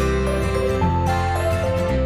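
Background music: a gentle melody of held notes over a steady bass line.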